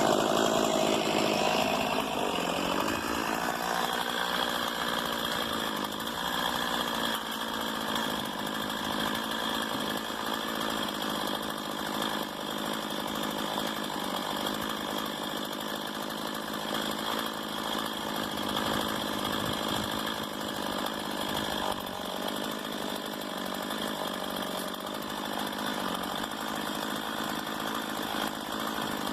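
Stihl MS 170 two-stroke chainsaw running, loudest in the first couple of seconds, then settling to a steady run.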